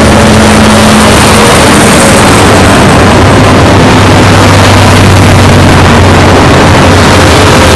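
Heavy diesel trucks pulling low-loader trailers pass in a convoy on a highway: a loud, steady low engine drone with tyre and road noise.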